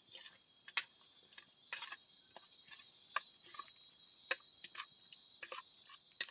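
Night insect chorus of crickets trilling steadily and high-pitched, with a few sharp clicks and taps scattered through it.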